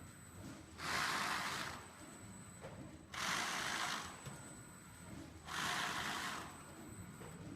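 Automatic 1600 mm cutting machine working through its cycle: a rushing stroke about a second long repeats roughly every two and a half seconds, three times, over a faint steady high whine.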